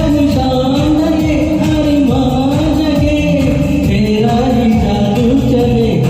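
A voice singing a Hindi film pop song over a loud karaoke backing track with a steady beat.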